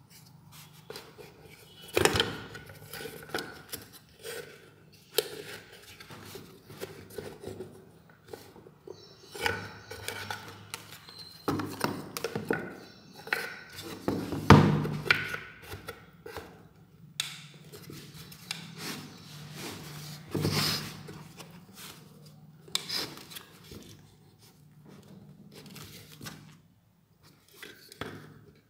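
Handling sounds as a small 2-inch speaker driver on a wooden panel is fitted into a plywood box: irregular knocks, taps and rubbing of wood with some rustling, the loudest knock about halfway through.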